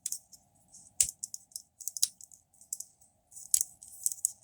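Plastic parts of a Transformers Cheetor action figure clicking and rattling as they are handled and flipped into place: several sharp clicks about a second apart, with light scratchy rustling between them.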